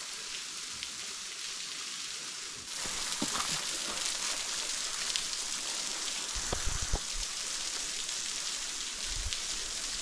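Waterfall running, a steady hiss of falling and splashing water that grows louder about three seconds in. A few low thumps come near the end.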